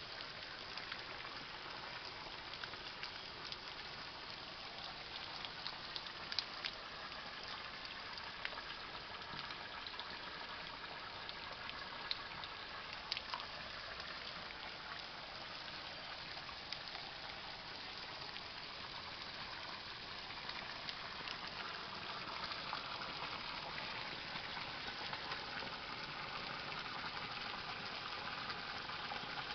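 Water pouring steadily from a plastic pipe and splashing onto rocks and into a shallow stream, a little louder near the end, with a few sharp ticks in the first half.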